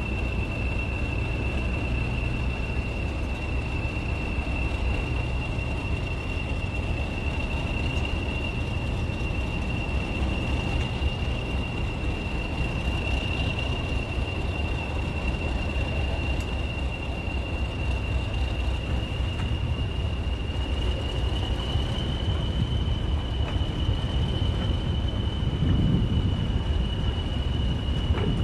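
English Electric Class 40 diesel locomotive at work: its steady, high turbocharger whistle sounds over a low engine and wheel rumble, heard from a carriage as the train moves along the platform. The whistle edges slightly higher about two-thirds of the way through.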